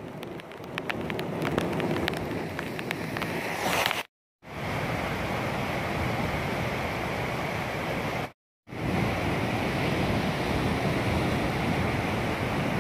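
Flash-flood water rushing through a rocky wadi, with rain, a steady rushing noise. Scattered sharp ticks over the first few seconds, and the sound cuts out briefly twice, about four and eight seconds in.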